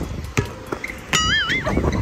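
A basketball being dribbled on a hard court, with a sharp bounce about half a second in, and a short wavering high tone about a second in, over background music.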